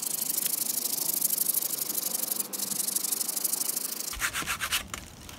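Hand pruning saw rasping rapidly back and forth through a thick moringa branch, making a pruning cut next to the trunk. The sawing thins out about four seconds in.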